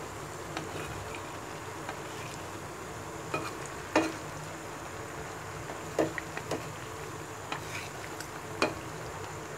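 Taler pitha (palm-fruit fritters) deep-frying in hot oil, a steady sizzle, while a metal spatula knocks and scrapes against the pan several times as it turns them, the loudest knock about four seconds in.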